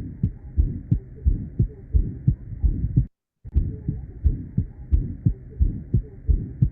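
Recorded stethoscope heart sounds: a regular, slightly fast lub-dub with a very loud second sound and a soft systolic murmur, an example of an innocent (Still's) murmur in a healthy young person. The recording breaks off for a moment a little after three seconds and then resumes, with a faint steady hiss above the beats.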